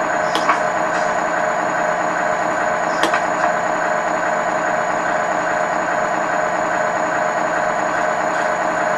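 Simulated diesel semi-truck engine idling steadily, played through the RC truck's multi-function control unit speaker box, with a couple of short clicks.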